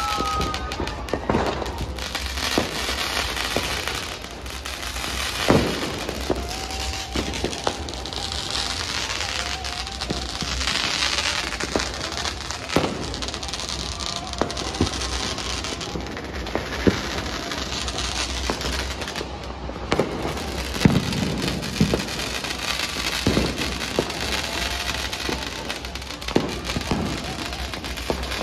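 Fireworks going off all around: a continuous dense crackle, punctuated by sharp single bangs every few seconds.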